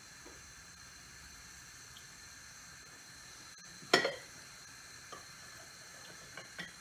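Butter sizzling faintly in a hot pan, with one sharp clink of a utensil about four seconds in.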